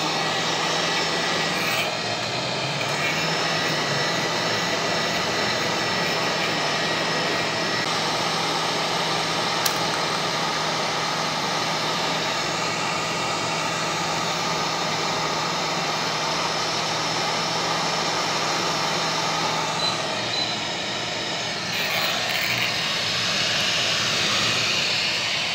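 Hot air rework station blowing steadily, a constant rushing hiss with a low hum under it that drops out near the end, as the ISL6227 power-supply chip is heated to desolder it from the donor motherboard.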